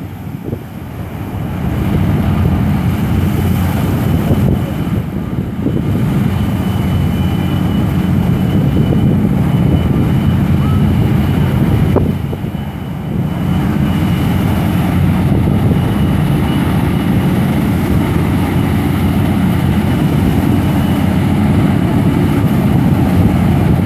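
Passenger hovercraft's engines and twin ducted propellers running at power as it leaves the beach and heads out over the water. It makes a steady, loud propeller drone that builds over the first couple of seconds.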